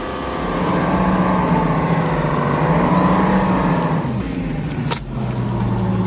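Heavy vehicle engine running under load, its pitch rising in the first second, falling away about four seconds in, then settling steady again, with one sharp knock about five seconds in.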